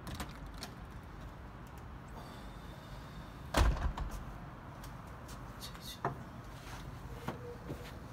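A glass shop door thumps once about three and a half seconds in. Lighter clicks and knocks from the door and its handle come before and after.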